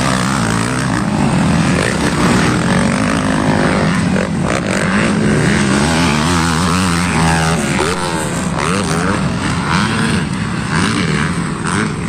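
Several motocross bikes' engines racing on a dirt track, revving up and down as the riders work the throttle through the corners, with one bike passing close by.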